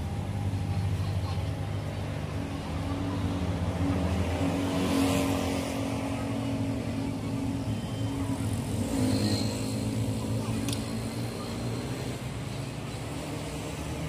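A motor vehicle engine running steadily, its sound swelling louder about four to five seconds in and again around nine seconds.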